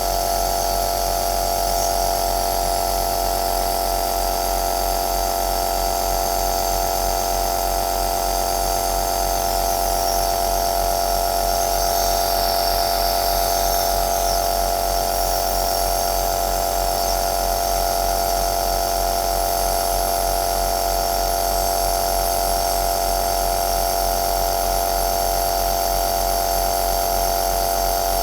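Compressor nebulizer running: a steady small-motor hum with a strong fixed tone and a hiss of air above it, unchanging throughout.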